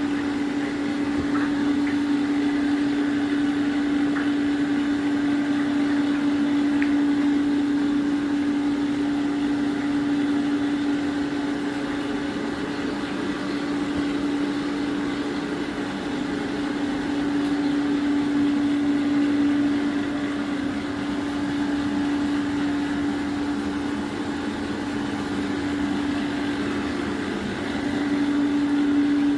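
A machine running steadily with a constant, even hum and a mechanical noise underneath, with no change in speed.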